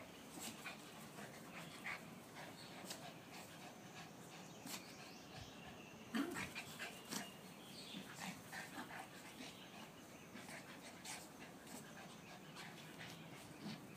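Two Pomeranians play-fighting: soft panting and short dog noises throughout, the loudest about six seconds in.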